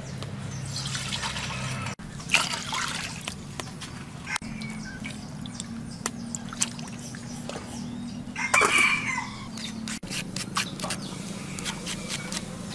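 Chickens around the yard, with a rooster crowing, the loudest call about nine seconds in, over water sloshing in a wok.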